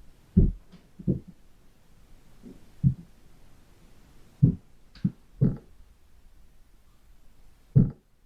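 Seven dull, low thumps at uneven intervals, each short, over a quiet background.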